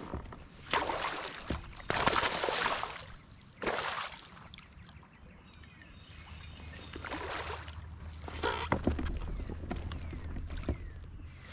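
Water splashing in several loud bursts beside a kayak while a hooked fish is fought close to the boat.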